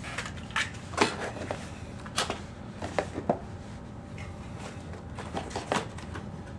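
Bicycle tire being worked back onto its rim by hand: irregular short knocks and clicks of rubber and tire bead against the rim, a few in quick succession around three seconds in.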